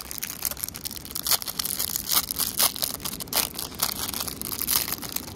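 A packet of ration crackers being torn open and handled, its wrapper crinkling and crackling in rapid, irregular crackles.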